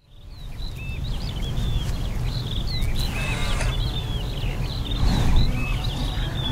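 Several birds chirping in quick, short, high calls over a steady low rumble, fading in at the start.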